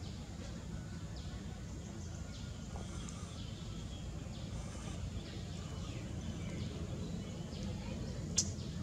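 Outdoor ambience: a steady low rumble with faint, scattered short high chirps, and one sharp click near the end.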